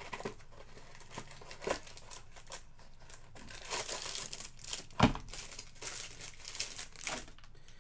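Trading-card packaging crinkling and tearing as a pack of cards is opened, a run of short crackles with one sharp snap about five seconds in.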